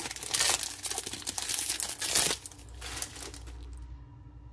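Wrapper of a 2024 Topps Series 1 baseball card pack crinkling in bursts as it is torn open and crumpled by hand. The crinkling stops about two and a half seconds in.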